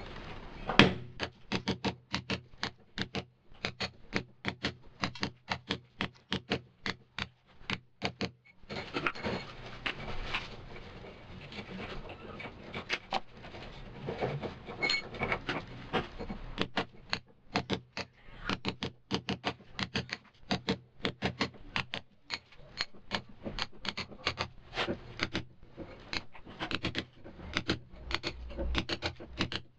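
A mallet striking a cold chisel again and again, chipping out a groove in a masonry wall: rapid, irregular metallic blows with a short break about eight seconds in.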